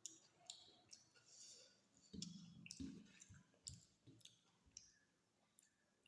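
Faint, wet mouth clicks and smacks of a person chewing food, with a few soft low thumps about two to four seconds in.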